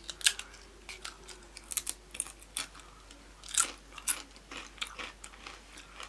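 Crunchy snack chips being bitten and chewed close to the microphone: a run of irregular sharp crunches.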